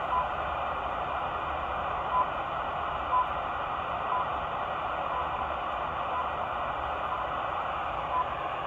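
RWM Moscow time signal on shortwave, heard through a Sangean ATS-909X2 portable receiver tuned in upper sideband: short beeps once a second over a steady hiss of static. Some beeps stand out clearly while others fade almost into the noise.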